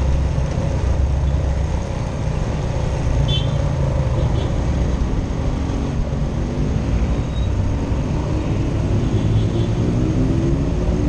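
Motorcycle engine running at low speed in city traffic, with road noise; its pitch climbs gradually through the second half as it speeds up.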